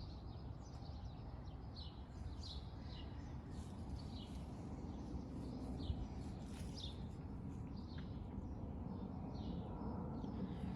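A small bird chirping over and over, short high notes coming every half second to a second, over a low steady rumble.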